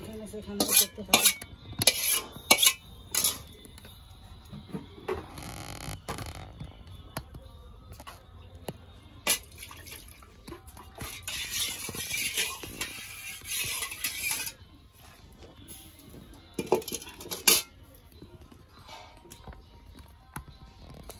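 Metal cookware clinking and scraping: a steel spatula against an iron wok and steel bowls as curry is served out. There is a run of sharp clinks in the first few seconds, a longer rasping stretch midway, and a couple more clinks later.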